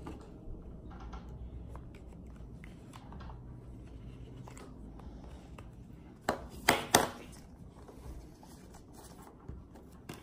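Cardboard phone box and its contents being handled on a wooden desk: soft rustles and small clicks, with a few sharp knocks close together a little past the middle.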